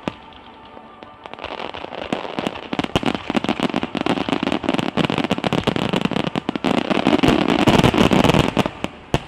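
Aerial fireworks shells going off in a rapid barrage: many sharp bangs over dense crackling that builds to a peak and stops abruptly near the end, with one last bang.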